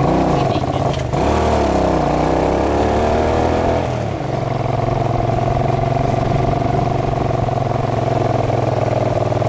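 Motorcycle engine running under way. Its note falls and rises a couple of times in the first four seconds as the throttle changes, then holds steady.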